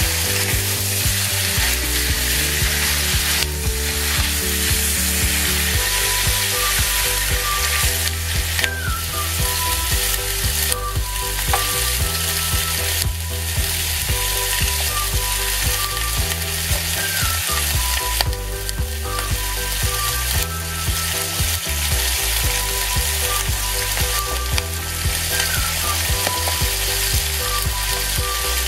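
Chicken pieces frying in a hot pan, a steady sizzle, with a spatula stirring them at first. Low steady tones run underneath.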